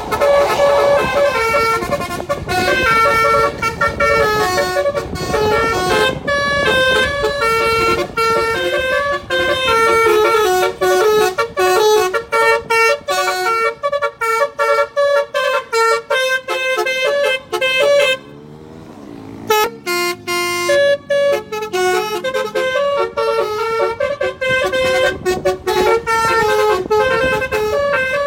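Telolet horn: a car's multi-tone horn sounding rapid runs of short notes like a tune, with a brief break about two-thirds of the way through.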